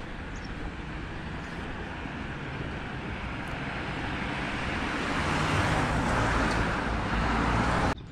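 Road traffic noise that swells steadily as a vehicle draws near, then cuts off suddenly just before the end.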